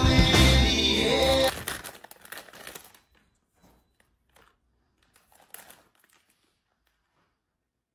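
Loud music that cuts off about a second and a half in, followed by faint crinkling of a plastic potato chip bag, with a brief louder rustle a little past halfway.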